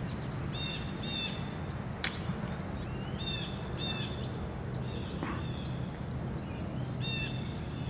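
Small birds chirping repeatedly over a steady low hum, with one sharp click about two seconds in.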